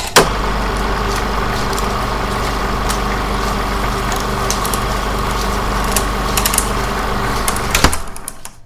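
Logo sound effect: a steady low mechanical hum with scattered clicks, opened by a sharp hit and closed by another hit near the end, after which it fades and cuts off.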